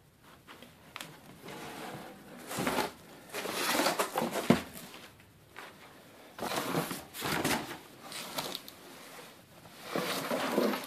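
Cardboard boxes and cloth being handled and shifted, in irregular bursts of rustling and scraping, with one sharp knock about four and a half seconds in.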